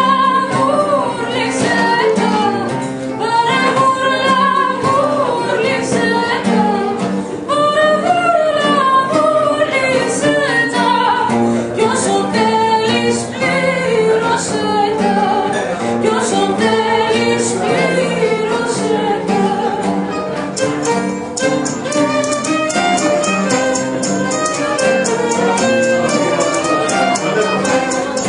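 Live group singing of an Asia Minor Greek folk song, a woman's voice prominent, over plucked strings and a bowed string instrument.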